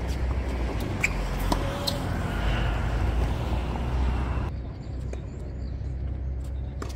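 Tennis balls struck with rackets during a rally, a few sharp pops over a steady low rumble.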